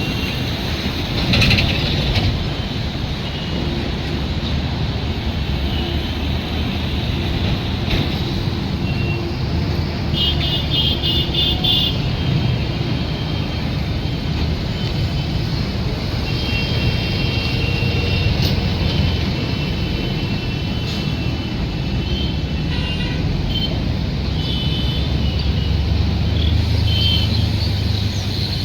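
Train running with a steady low rumble, with short high-pitched tones now and then.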